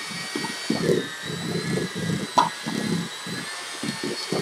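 Electric hand mixer running with a steady motor whine, its beaters churning a thick cream cheese and Cool Whip filling in a stainless steel bowl with an uneven low rumble. A single sharp tap about halfway through.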